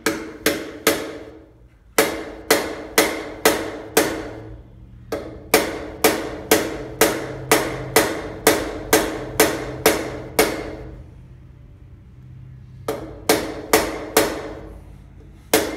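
Small mallet tapping a tight bar end plug into the end of a BMX handlebar: runs of quick taps, about two or three a second, with short pauses between runs, each tap leaving a brief ring from the bar. The plug goes in hard because the handlebar's walls are thick.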